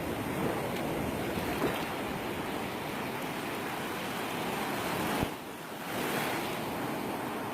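Ocean surf breaking and washing up the beach: a steady rush that eases for about half a second about five seconds in, then swells again.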